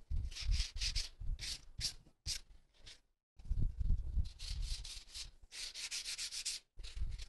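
Sandpaper rubbed by hand along the edges of drawer pieces in runs of quick back-and-forth strokes, with a short break about three seconds in. The sanding takes off wood fuzz so the pieces fit together easily.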